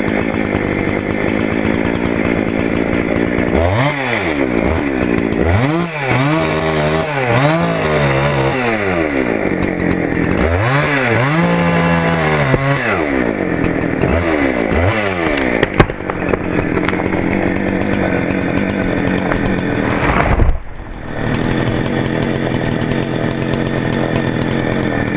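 Chainsaw engine running, revving up and falling back again and again as it cuts, then settling to a steady run. There is a sharp knock in the middle and a heavy thump near the end.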